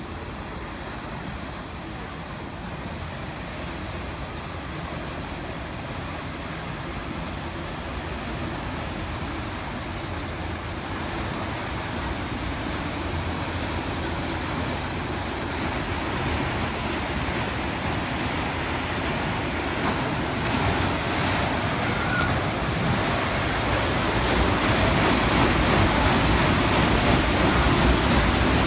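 Paddle wheels of the steamer Stadt Luzern churning the lake water as it comes alongside a pier, a steady rushing of water that grows steadily louder as the ship draws near.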